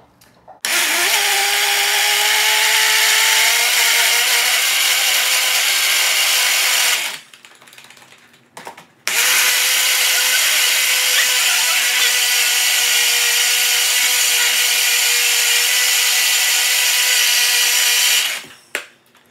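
Personal bullet-style blender blending a smoothie in two runs, about six and nine seconds long, with a short pause between. Its motor whine rises as it spins up and then holds steady.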